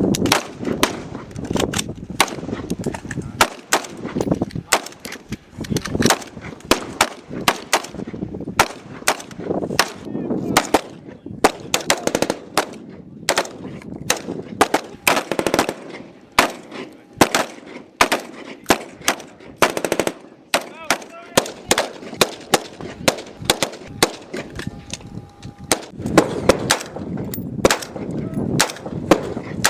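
Gunfire: sharp shots at an irregular pace, sometimes several a second, with short pauses between clusters, over a low background.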